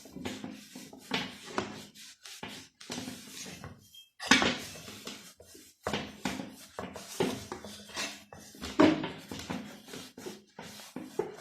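Irregular clattering, scraping and rubbing as the rear wheel hub of a CG 125 motorcycle is handled and cleaned, with sharper knocks about four and nine seconds in.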